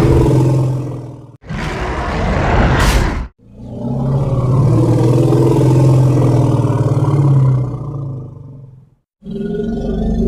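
A run of separate custom Tyrannosaurus rex roar sound effects with short silences between them: one roar ends about a second in, then comes a short breathy, hissing growl, then one long, deep roar lasting about five seconds, and another begins near the end.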